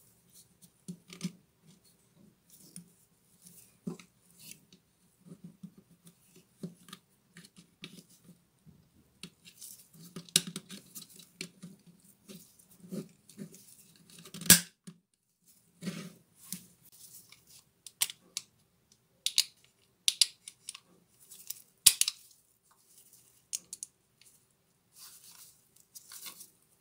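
Irregular clicks, scrapes and light rattles of plastic and metal parts as the switch assembly and wiring of a Bosch GWS 7-125 angle grinder are worked out of its housing by hand. A few louder sharp clicks stand out, the loudest a little past halfway and again about two-thirds in.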